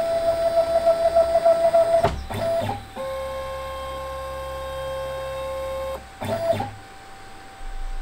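Stepper motors of a home-built CNC router driving its ball-screw axes through a homing cycle: a steady electronic whine that changes pitch twice, each change after a short clunk, at about two and six seconds, as an axis stops at its limit switch and the next move starts.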